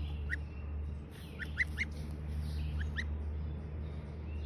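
A gosling peeping: about six short, high chirps, three of them in quick succession around the middle, over a steady low hum.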